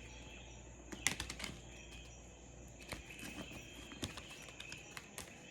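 Jungle-sounds ambience with a steady high insect drone, broken by a few light clicks and taps, the clearest about a second in.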